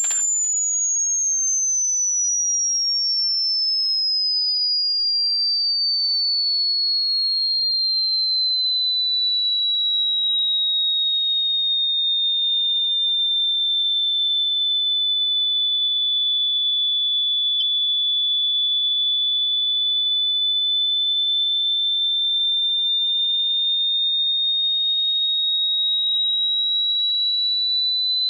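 A single pure, high-pitched electronic tone, gliding slowly down in pitch for about twelve seconds, then holding steady and creeping slightly back up near the end. A faint click sounds about two-thirds of the way through.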